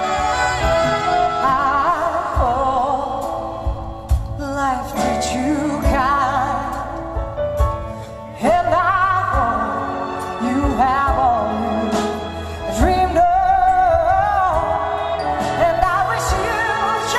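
A woman singing a ballad with strong vibrato into a microphone, accompanied by a live orchestra with violins. The sound dips briefly and comes back in at full strength about eight seconds in.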